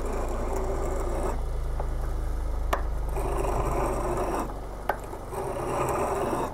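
Hardened O1 tool-steel boring bar tip being rubbed back and forth on a bench sharpening stone: a gritty rasping scrape in long strokes, with a few short pauses and light clicks. The tip's ground radius is being honed to shape. A steady low hum runs underneath.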